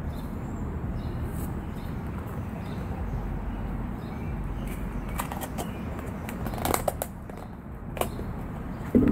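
Rinsed chickpeas tipped from a plastic tub into a small stainless steel frying pan, with scattered light clicks and rattles of the tub and pan, and a louder knock near the end. A steady low background noise runs underneath.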